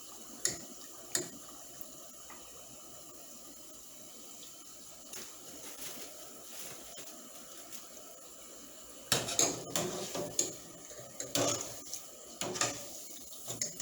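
Hot frying oil sizzling faintly and steadily, with a couple of light clicks. From about nine seconds in comes a run of irregular clattering knocks from a utensil against the pot as the last fries are lifted out of the oil.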